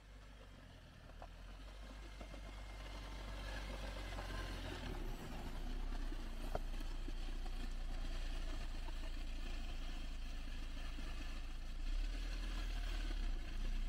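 A vehicle engine running with a steady low rumble, fading up over the first several seconds and then holding level.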